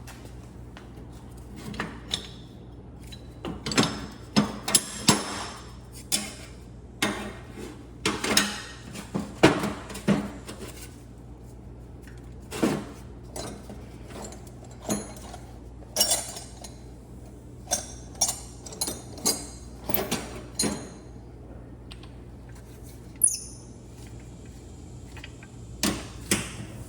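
Metal parts clinking and knocking as they are handled and set down, in irregular separate strikes, some with a short bright ring. There is a brief high squeak near the end.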